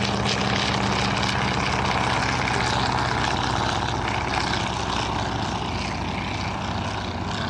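Propeller piston engines of World War I replica fighter aircraft running in a steady drone, easing off slightly toward the end.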